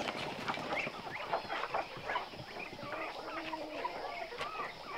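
A flock of chickens clucking, with many short calls overlapping one another.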